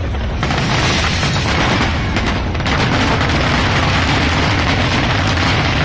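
Fireworks going off in a rapid, continuous barrage of booms and pops with no gaps between them, growing denser about half a second in.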